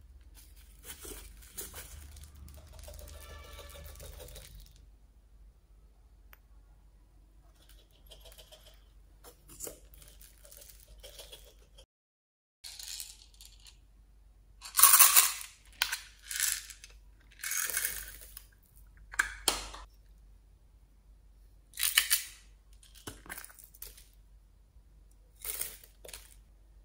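Beads, foam balls and glitter shaken out of small plastic containers into a glass dish of slime: a soft pouring hiss in the first few seconds, then a string of about seven short, sharp rattles in the second half.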